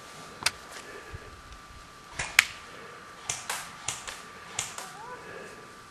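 Scattered airsoft gunfire during a game: about eight sharp cracks, some single and some in quick pairs, the loudest about two and a half seconds in.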